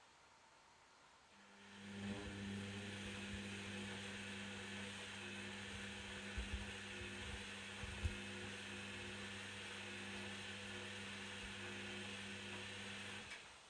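Candy Activa Smart washing machine running mid-wash: about a second and a half in it starts up with a steady hum and hiss, gives a couple of brief thumps in the middle, and stops shortly before the end.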